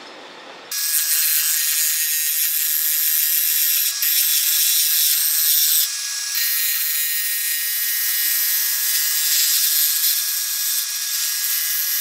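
Gouge taking a drag cut on a walnut-and-cedar slat body spinning on a wood lathe: a steady, loud hiss of wood being cut and shavings flying, starting about a second in and briefly easing near four and six seconds. The cut is truing up a surface that wobbles.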